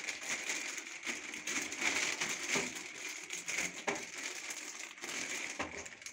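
Clear plastic packaging bag crinkling and crackling as hands twist and pull it open, an unbroken run of small irregular crackles.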